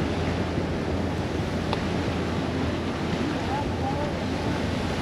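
Ocean surf washing in steadily, with wind on the microphone adding a low rumble.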